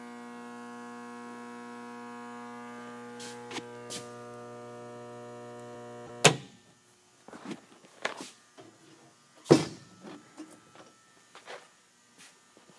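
480-to-240-volt step-down transformer humming steadily with a buzzy mains hum. About six seconds in, a loud click of the breaker being switched off, and the hum stops at once. A few scattered knocks and clicks follow.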